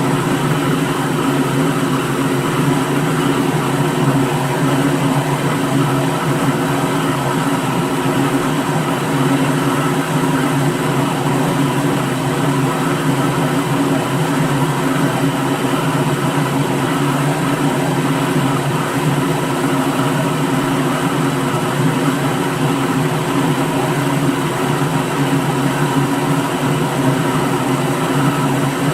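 Electric blender running steadily at one speed: an unbroken whirring motor hum that does not change.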